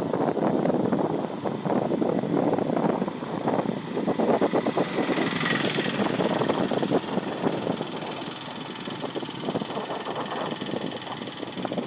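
A vehicle running along a rain-soaked, flooded road, with a dense, irregular crackle of tyre and water noise throughout. A brighter hiss swells and fades about halfway through, perhaps another vehicle passing.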